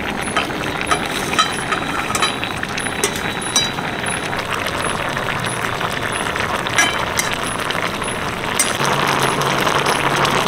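Spatula and steel plate clinking against a metal curry pan, several separate clinks, as fried rui fish pieces are slid into a simmering vegetable curry, over a steady hiss. A low steady hum joins near the end.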